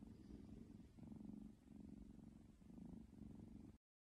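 Orange kitten purring softly, a low rumble that swells and eases about once a second with its breathing, cut off abruptly near the end.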